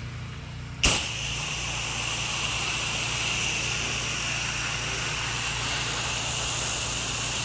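Pressure washer's engine running steadily. About a second in, the wand's spray cuts in with a sudden burst and carries on as a loud, steady hiss of water jetting from the nozzle.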